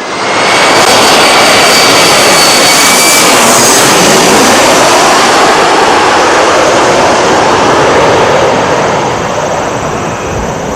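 Jet airliner passing low overhead: a loud roar that comes on suddenly with a high engine whine, then a sweeping, shifting rush as the plane goes over, easing off near the end.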